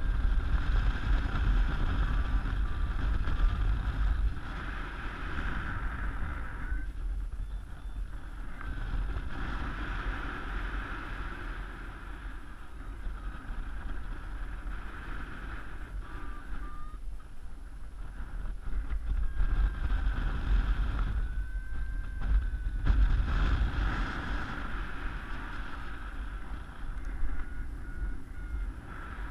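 Rushing wind buffeting a helmet camera's microphone as a paraglider flies, with a deep rumble that swells and eases several times. Faint short beeps from the flight variometer come through the wind now and then.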